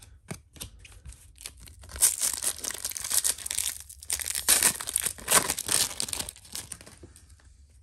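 Foil wrapper of a 1994-95 Fleer NBA Jam Session trading-card pack being torn open and crinkled by hand: a dense run of tearing and crackling from about two seconds in, lasting about four and a half seconds. A few light ticks come before it.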